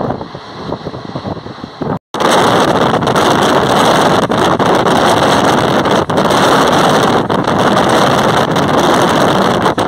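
Passenger express train running at speed, heard from an open window: a steady rush of wind and rolling noise, with wind buffeting the microphone. It cuts out for an instant about two seconds in and comes back louder.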